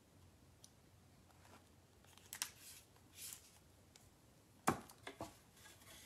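A new squeeze bottle of DecoArt acrylic paint being opened by hand: a few small sharp plastic clicks and scratchy rustles of the cap and seal, with the loudest click about three-quarters of the way through.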